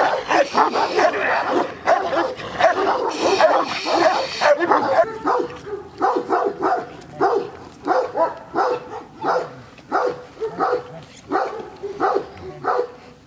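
Large shepherd dogs, a chained Caucasian shepherd among them, barking at each other: a dense run of overlapping barks for the first five seconds or so, then single barks about two a second.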